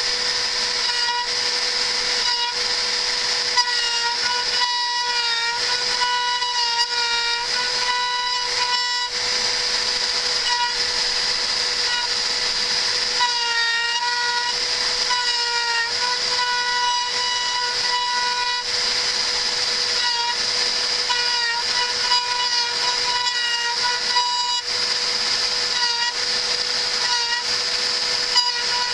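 CNC router engraving into a laminate floorboard: a steady high spindle whine with a set of motor tones that dip and shift in pitch as the axes move, over and over.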